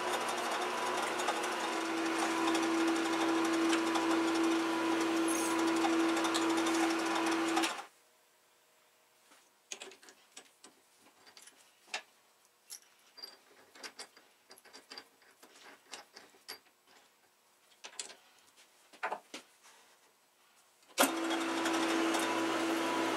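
Small metal lathe running with a steady motor hum that cuts off suddenly about eight seconds in. Scattered light clicks and knocks of tools and parts being handled follow. The lathe starts again sharply near the end as a twist drill in the tailstock chuck is fed into the end of the shaft.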